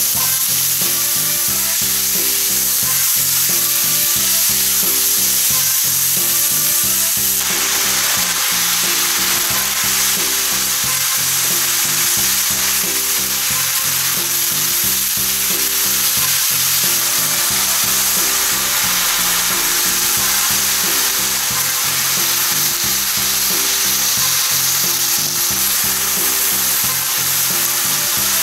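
Sliced lamb and vegetables sizzling in a frying pan as they are stir-fried with chopsticks; the sizzle gets fuller about seven seconds in, once bean sprouts are in the pan. A low repeating music loop plays underneath.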